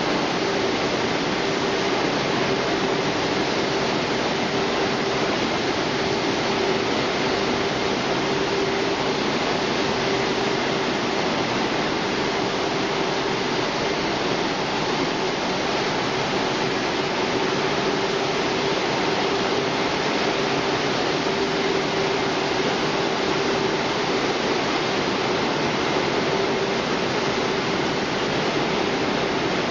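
Automatic French fries production line running: an even, steady machinery noise with one constant hum through it.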